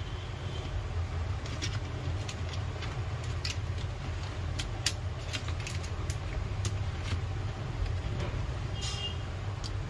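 Scattered light plastic clicks and taps as a laptop's casing and display hinges are handled and worked loose, over a steady low hum.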